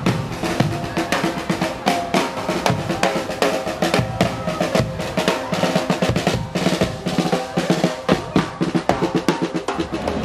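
Marching brass band playing: snare and bass drum beat a busy, driving rhythm under trumpets, tubas and clarinet, with the drumming the loudest part.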